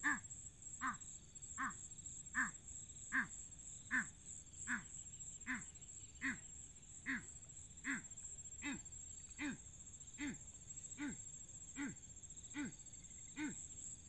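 A bird-call lure imitating the burcet's call, used to draw birds into a mist net: one short call with a falling note, repeated evenly about every 0.8 s.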